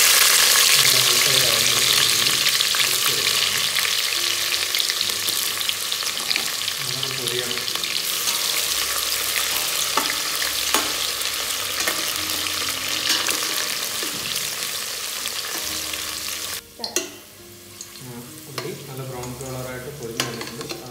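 Sliced onions deep-frying in hot oil in a stainless steel pot, a loud steady sizzle, stirred with a slotted metal spatula that clicks against the pot now and then. Near the end the sizzle drops suddenly to a quieter level with more scattered scrapes and clicks.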